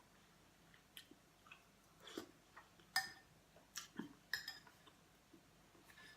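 Quiet eating sounds: a spoon clinks twice against a bowl, about three and four and a half seconds in, each strike leaving a short ring, with soft chewing and small clicks around them.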